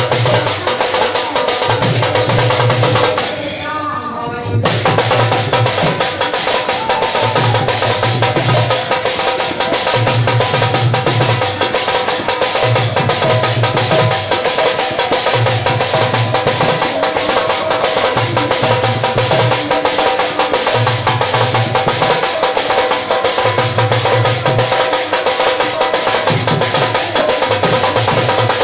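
Live Sambalpuri kirtan music through a loud PA: women singing into microphones over a barrel drum beating a steady repeating rhythm, with a short break in the music about four seconds in.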